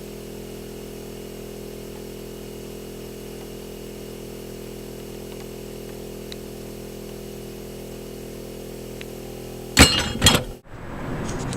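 Steady mechanical hum made of several fixed low tones, with a short loud burst of noise about ten seconds in that cuts off abruptly.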